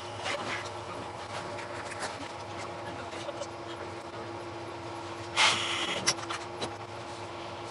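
Steady hum inside a train passenger car standing at a station, with one short, louder burst of hiss about five and a half seconds in, followed by a click.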